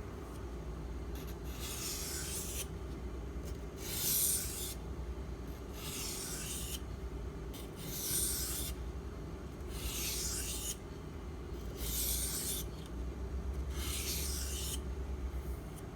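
Knife blade drawn across a wet water stone in sharpening strokes: a gritty rasp about once every two seconds, seven strokes in all.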